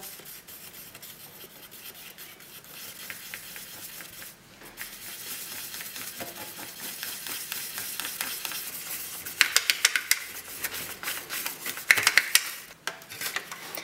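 Wooden lollipop stick stirring a thick, sticky chocolate candy-powder dough in a small plastic tray compartment: a steady scraping, with two louder spells of rapid scraping strokes in the second half.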